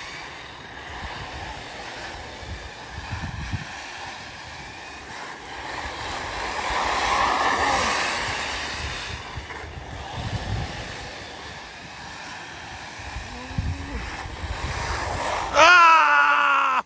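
Arrma Typhon 6S brushless electric RC buggies racing on a dirt track: motor whine and tyre noise swelling and fading as the cars pass, with wind on the microphone. About a second before the end a loud tone glides downward and then cuts off.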